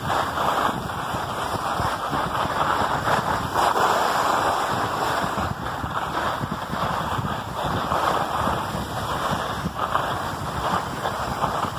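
Rushing noise of sliding down a groomed ski slope: packed snow hissing and scraping underfoot, with wind buffeting the microphone. It swells and eases every few seconds.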